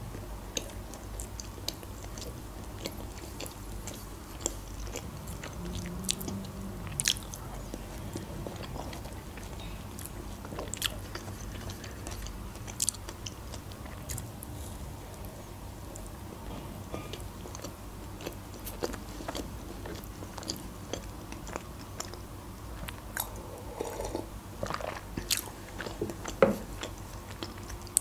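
A person chewing and biting a cream-filled eclair, with scattered short clicks and small crunches from the mouth.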